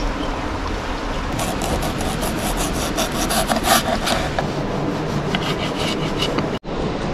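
Kitchen knife slicing red onion on a wooden cutting board: a quick run of cutting strokes against the board, then a few lighter cuts through a tomato near the end. Under it, the steady rush of a stream.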